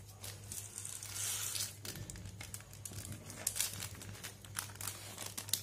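Plastic packaging and a paper note crinkling and rustling as they are handled, in irregular crackles over a low steady hum.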